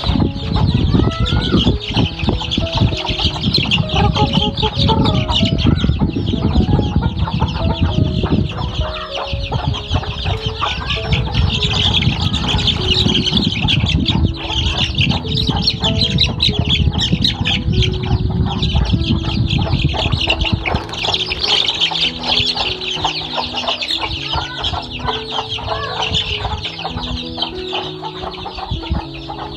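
A pen of young chickens peeping and clucking without a break, a dense high cheeping from many birds at once, with a low rumble under it that eases off about two-thirds of the way through.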